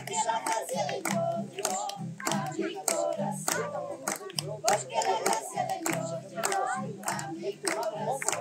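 A congregation clapping their hands, many sharp claps, along with singing and instrumental music.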